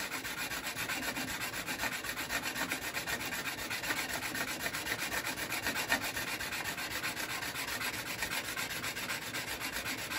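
Steel card scraper edge, held in a wooden guide block, rubbed back and forth on a diamond sharpening stone in quick steady strokes: a continuous gritty scraping as the edge is ground flat.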